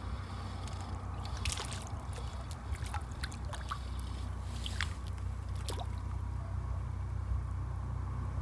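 A hooked fish being played in: water splashing and trickling at the surface, with scattered clicks and ticks of handling over a low steady rumble.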